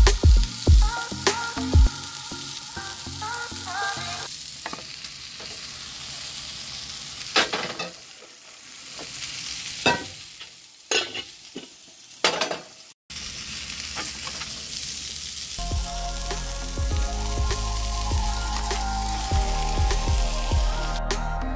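Hamburger patties sizzling in a nonstick frying pan under a paper plate, a steady hiss of frying fat. A few sharp knocks near the middle as the pan and plate are handled.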